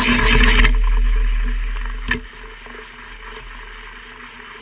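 Chamfering cutter grinding on the edge of a drilled hole in metal, a harsh cutting noise that stops about half a second in as the cut ends. The spindle motor keeps running with a low hum that fades, a click just after two seconds in, then a quieter steady machine hum.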